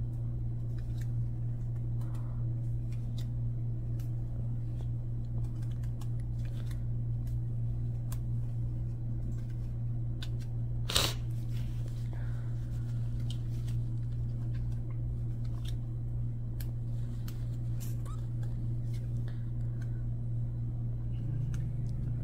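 Football trading cards being handled and slid through by hand, with faint cardboard clicks and one sharp click about halfway through, over a steady low hum.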